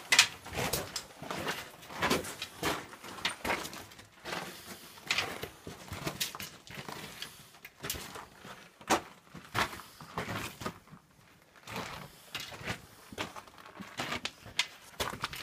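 Footsteps of hikers walking over gravel and sandstone, an irregular crunch or scuff every half second or so.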